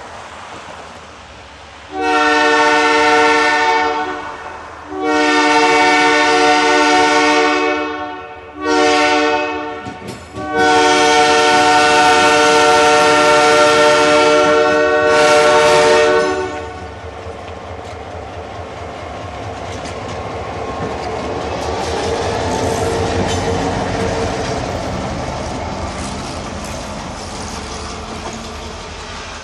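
Cando Rail diesel locomotive's multi-chime air horn sounding the level-crossing signal: long, long, short, long, starting about two seconds in. Then the locomotive rumbles past over the rails, its engine and wheel noise swelling to a peak and easing off.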